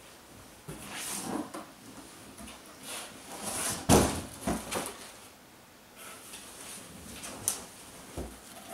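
Cardboard appliance box being handled: rustling and scraping, with a loud thump about four seconds in and a few smaller knocks as the box is moved and its flaps opened.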